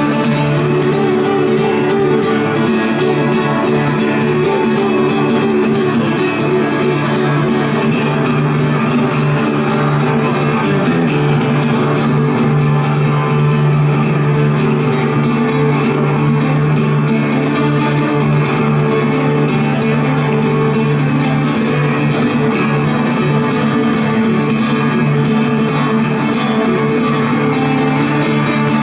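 Live band playing an instrumental break with guitar to the fore: long held notes, some wavering in pitch, and a change of chord about eleven seconds in.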